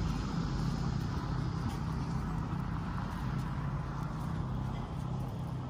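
Street traffic: a steady low engine hum that slowly fades.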